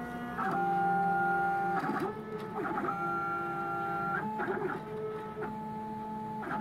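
Stepper motors (NEMA 17 and NEMA 23) of a home-built Solsylva–MPCNC hybrid CNC router driving its axes through an air-cut test with no spindle running. The whine holds one pitch for about a second at a time, then slides or jumps to a new pitch as each move speeds up, slows down or changes direction.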